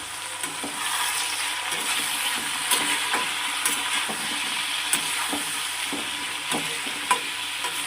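Onion, tomato and spice masala sizzling in hot oil in a pan while it is stirred, with short taps and scrapes of the spoon against the pan every second or so.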